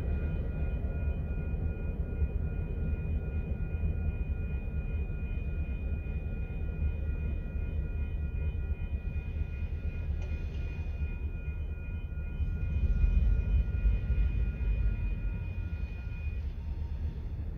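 Distant CN diesel freight locomotive running with a steady low rumble and a thin high whine over it; the whine stops near the end.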